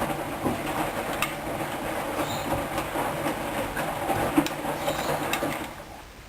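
Hoover Dyn 10124 DP washing machine running its wash: the drum turns with a rumble, wet laundry sloshing, and scattered clicks and knocks. It stops near the end.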